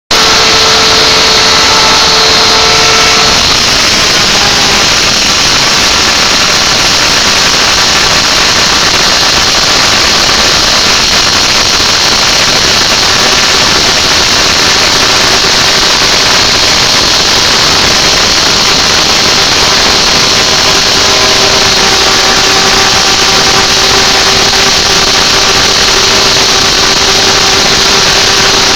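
CNC router running steadily, with a loud even hiss and faint steady tones that change pitch a few times as the machine works.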